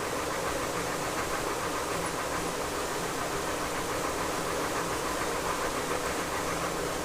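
A steady mechanical hum, like a motor or engine running, with a faint low drone that holds even throughout.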